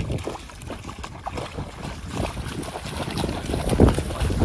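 Wind buffeting the microphone outdoors: an uneven low rumble that swells near the end.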